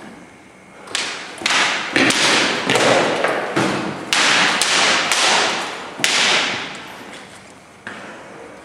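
Synthetic longswords clacking together in a fast sparring exchange: a quick run of sharp knocks from about a second in to about six seconds, with scuffling and clatter between them, and one more knock near the end.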